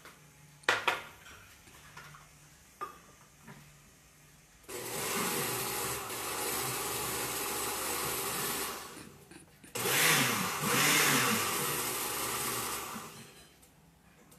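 Countertop blender mixing a thick crepe batter of milk, egg and wheat flour, in two runs of about four seconds each with a short stop between. A couple of sharp knocks come before the first run.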